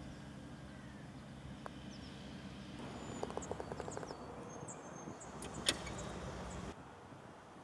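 Quiet golf-course ambience: a low steady hum with faint high bird chirps and a few soft ticks, and one sharp click about five and a half seconds in, after which the hum drops away.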